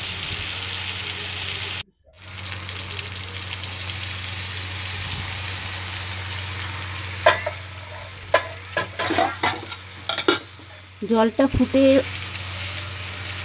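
Oil sizzling steadily in a metal wok, where turmeric, green chillies and nigella seeds are frying and water is being stirred in; the sound cuts out briefly about two seconds in. From about seven seconds on, a metal spoon scrapes and knocks against the wok several times as it stirs.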